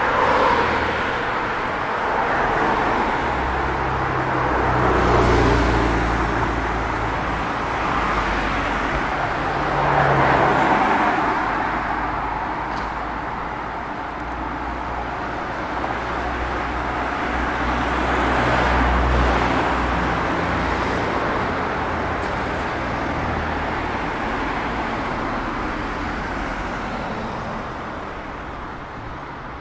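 Street traffic: cars pass one after another, each swelling and fading with engine hum and tyre noise, about four times. The traffic thins out near the end.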